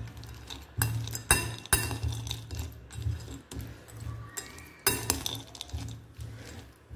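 Metal spoon stirring salted peanuts and chopped vegetables in a ceramic bowl, with irregular clinks and scrapes of the spoon against the bowl.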